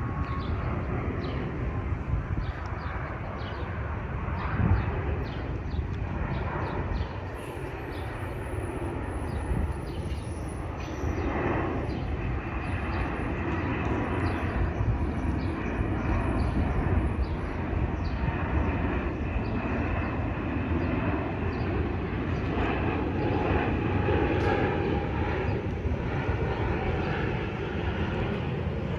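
Jet airliner's engines on landing approach: a broad, steady rumble that swells slightly in the second half.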